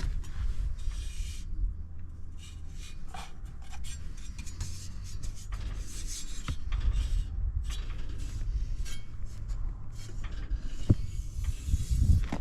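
Yamaha Serow 225's air-cooled single-cylinder engine idling through an aftermarket Delta Barrel 4 up-muffler: a low, steady running note. Many short clicks and rubbing noises sit over it.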